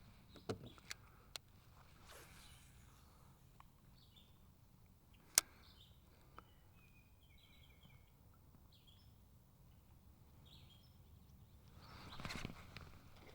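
Quiet lake ambience with faint scattered bird chirps, broken by a single sharp click about five seconds in and a few lighter clicks near the start; a short rustle of handling or water near the end.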